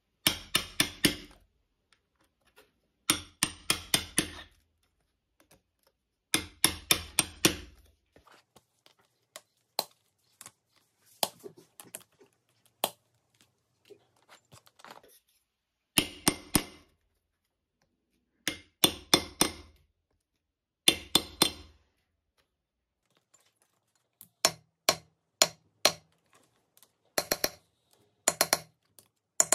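Hammer striking a steel rivet-setting punch on an anvil, setting copper washers and rivets through a leather strap: bursts of four to six quick metallic strikes, repeated about eight times. Fainter single clicks fall in the middle.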